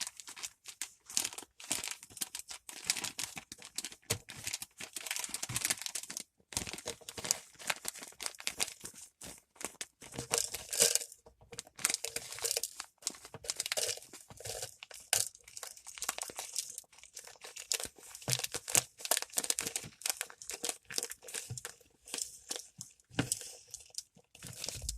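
Plastic bag of moistened potting mix crinkling and rustling in irregular bursts as it is handled and squeezed to get the mix out.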